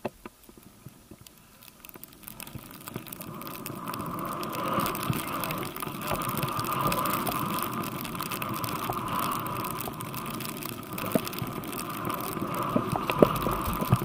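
Skis sliding and turning through deep powder snow, a steady hiss with wind rushing over the helmet-camera microphone. It builds from quiet after about two seconds, with scattered small knocks.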